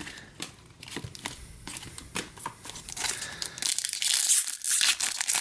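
Foil hockey card pack wrapper crinkling and tearing as a pack is opened by hand, with light clicks of handled cards at first and dense, louder crinkling in the second half.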